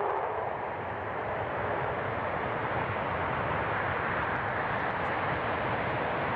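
Jet aircraft engines running: a steady, even rush of noise that does not change in pitch or loudness.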